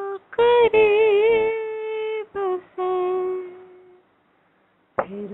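A woman singing long held notes without words, in several phrases with a slight waver in pitch, and a pause of about a second near the end.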